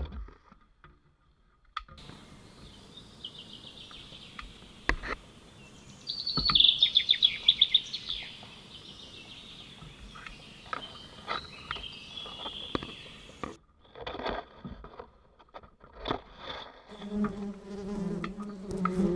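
High chirping trills with scattered clicks and knocks, loudest a few seconds in, stop about two thirds of the way through. Near the end a steady low buzz of honeybees sets in.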